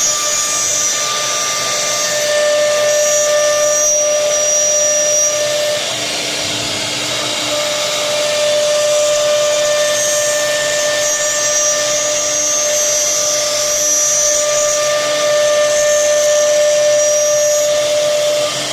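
Air-cooled electric spindle of a multi-head woodworking CNC router running at high speed: a steady high whine over a hiss. The whine drops out for a second or two about six seconds in, then returns.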